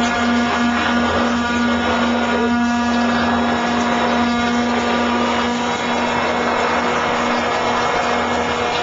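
Small electric drive motors of an RC model tug running steadily, their propellers churning the bathtub water, with a constant low hum that eases a little about halfway through.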